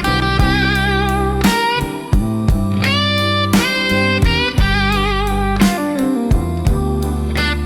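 Slow electric blues instrumental break: an electric guitar plays a lead of held, bent notes with wavering vibrato over bass and a steady drum beat.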